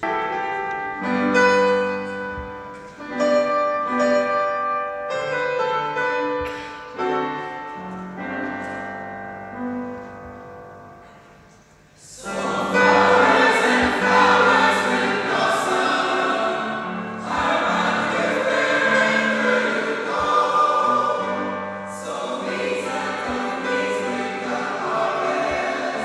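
A mixed church choir singing. The first passage thins out and fades, then the full choir comes in much louder about halfway through.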